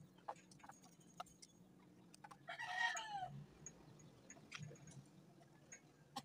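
A rooster crows once, about two and a half seconds in, in a single call of about a second that falls in pitch at the end. Faint scattered clicks can be heard around it.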